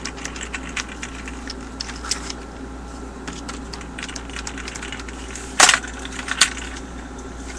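Handling noise from a Cybergun Thompson M1A1 airsoft gun: scattered small clicks and knocks of its plastic and metal parts, with a sharp clack about two-thirds of the way in and a smaller one shortly after.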